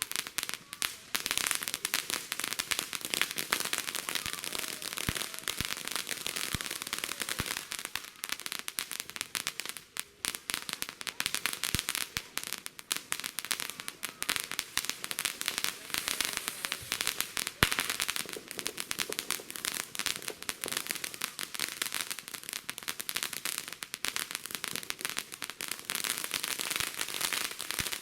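Fireworks crackling and popping in a dense, continuous rapid stream, with a brief lull about ten seconds in and one louder pop a little past halfway.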